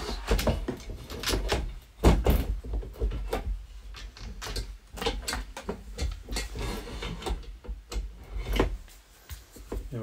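Parts of a custom water-cooled PC being handled and fitted by hand: a string of irregular clicks, taps and knocks, with the heaviest knock about two seconds in.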